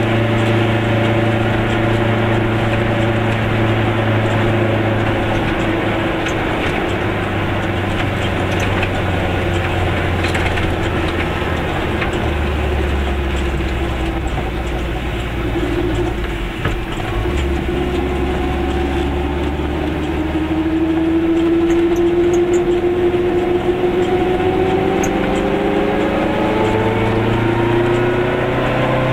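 Goggomobil's two-stroke twin-cylinder engine heard from inside the small car on the move. The engine note drops lower as the car slows about halfway through, then rises steadily as it accelerates away near the end.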